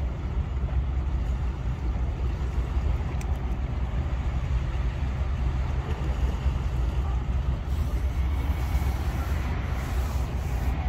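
A steady low rumble, with no distinct knocks, calls or voices standing out.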